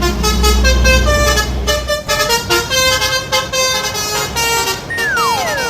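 Telolet-style multi-tone bus horn playing a quick melody of short notes, over a low engine rumble that stops about two seconds in. Near the end a single whistle-like tone glides smoothly down.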